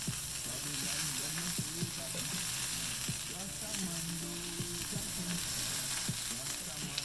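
Tuna steak searing in a hot pan: a steady sizzle of fat and oil with scattered small pops.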